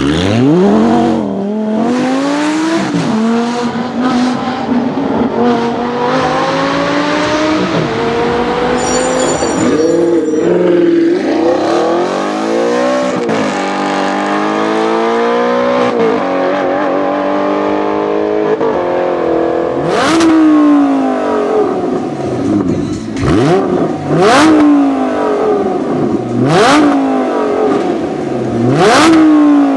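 Audi R8 V10 with a Capristo exhaust accelerating hard, its pitch climbing and dropping back at each quick upshift, followed by another Audi R8 pulling away through the gears. Near the end the parked, supercharged R8 V10 Plus is free-revved four times, each rev a sharp rise and fall.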